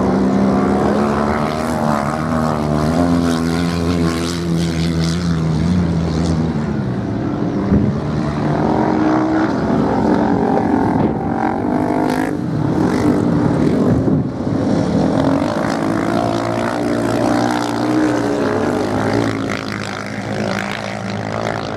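Motorcycle engines running on a sand race track, revving up and down as the bikes accelerate and slow; the pitch falls over the first few seconds, then rises and falls again.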